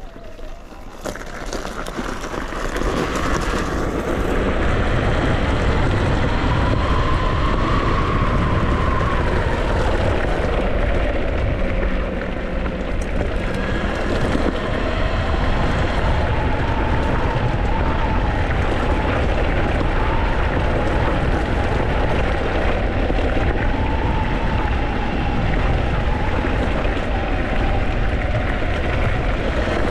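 Talaria Sting electric dirt bike pulling away and riding a gravel track. Its motor whine rises and falls with speed over a heavy rumble of wind and gravel under the tyres. The sound builds over the first few seconds as the bike gets going.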